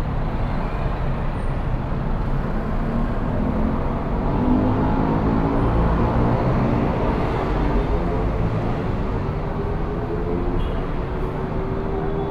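Engines and road noise of slow city traffic, heard from a motor scooter. One engine's pitch rises slowly through the second half.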